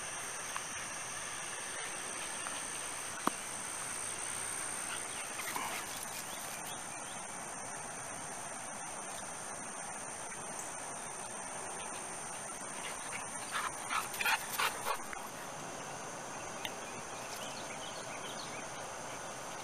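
A steady, high-pitched drone of insects, with a dog barking several times in a short burst about two-thirds of the way in.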